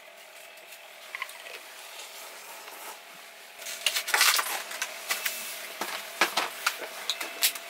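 A faint steady hum, then from about halfway in a run of squishy, crackling clicks as hot sauce sputters out of a bottle into a cup of instant noodles.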